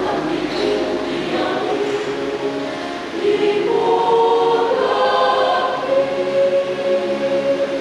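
Mixed church choir of women's and men's voices singing a hymn in Batak Toba, holding long chords that swell louder about three seconds in and end on a long held note.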